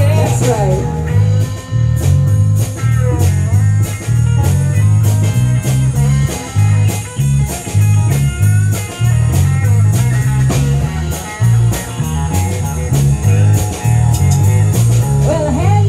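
Live rock band playing an instrumental stretch: electric guitar lead over a driving bass line and steady drums. The vocals come back in near the end.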